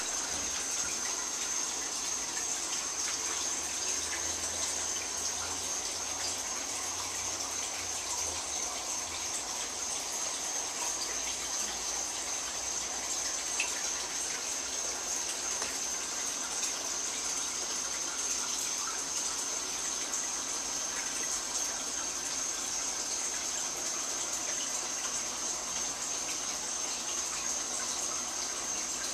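Steady rush of running water with a thin, steady high-pitched whine over it.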